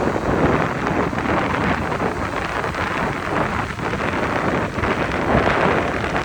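Wind blowing hard on the microphone: a loud, rushing rumble that swells and eases with the gusts.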